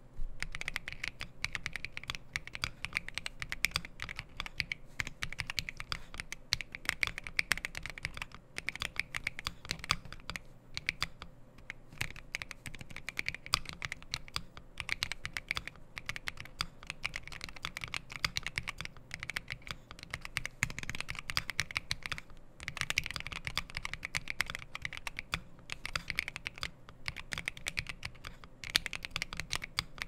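Fast typing on a compact mechanical keyboard fitted with Honey Milk XDA-profile keycaps: a dense, continuous run of clacking keystrokes, broken by a few brief pauses.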